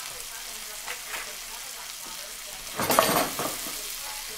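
Chicken tenderloins and snap peas sizzling as they fry in butter in a nonstick skillet. About three seconds in there is a short, louder burst of sizzling and clatter as the snap peas are stirred around the pan.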